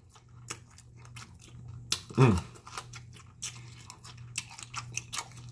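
Close-up chewing and lip smacking of a barbecued bologna sandwich on toasted Texas toast. About two seconds in comes one short "mmm" that falls in pitch. A low steady hum runs underneath.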